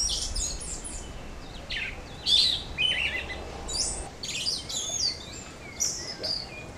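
Birds chirping and singing: quick high whistled and warbled phrases, one after another, over a low hum that stops a little past the middle.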